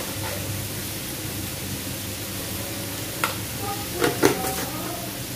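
Potatoes and cauliflower frying in oil in a pan, with a steady sizzle. A spatula clicks once against the pan after about three seconds, then clatters a few times as it stirs.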